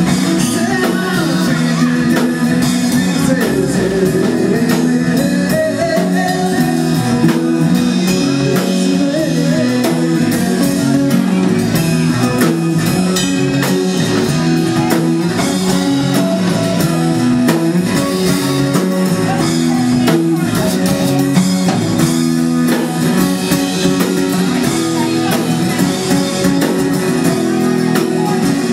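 Live blues-rock band playing: electric guitar, bass guitar and drum kit, with some sung vocals over a steady groove.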